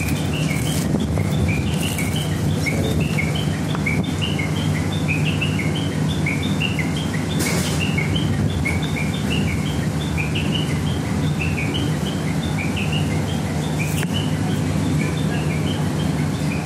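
Birds chirping in many quick, repeated short chirps over a steady low hum, with a brief noisy rustle about seven and a half seconds in.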